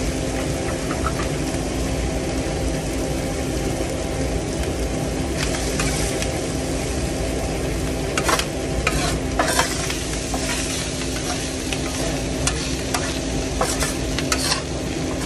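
Steady sizzle of food frying on a hot flat-top griddle, with a metal spatula clicking and scraping on the griddle a number of times in the second half, over a steady low hum.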